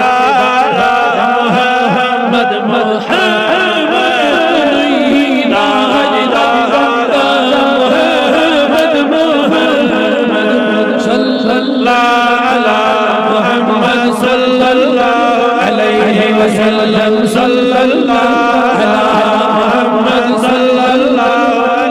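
Male chanting of a Kashmiri naat: a continuous, wavering melodic vocal line.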